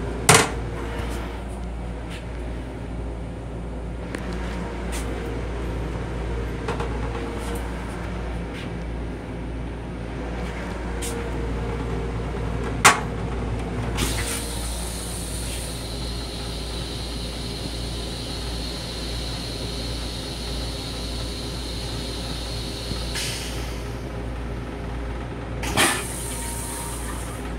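Toilet in a Long Island Rail Road M7 railcar's restroom: the lid comes down with a clack, then after a second click about 13 s in, the flush runs for about nine seconds as a steady hiss with a high whine and stops suddenly. A thump near the end as the lid goes back up, over the car's steady low rumble.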